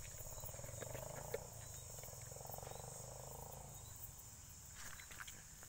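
Crickets trilling steadily, with a lower buzzing insect trill for the first three seconds or so. A few faint taps and clicks, one about a second in and a cluster near the end.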